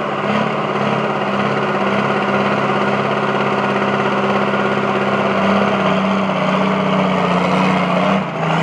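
John Deere pulling tractor's diesel engine running hard at steady high revs while dragging a weight sled, a held drone that dips briefly near the end.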